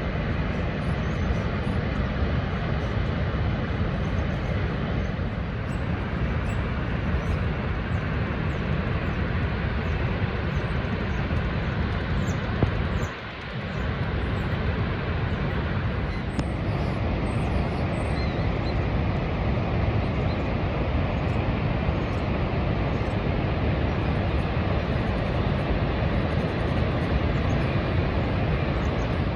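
Niagara Falls roaring: a steady, deep wash of falling water, heaviest in the low end, with a brief dip in level about 13 seconds in.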